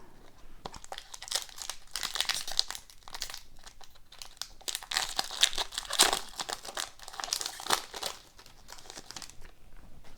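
Foil wrapper of a hockey card pack crinkling and tearing as it is opened, a dense crackle that dies down near the end.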